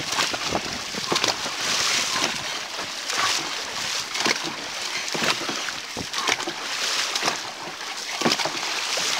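Dragon boat crew paddling in unison: the paddles catch and pull through the water with a splash on each stroke, in a steady rhythm of about one stroke a second.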